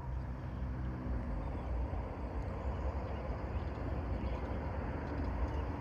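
Steady low rumbling outdoor noise, with a faint hum that fades out in the first second or so.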